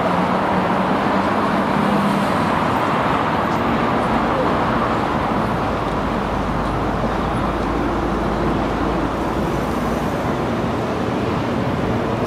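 Steady city road traffic: a continuous rush of passing cars with a low engine hum.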